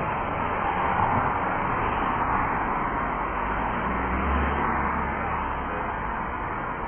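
Road traffic passing close by: tyre and engine noise of cars going past, swelling and easing, with a deeper rumble about four seconds in as a car passes.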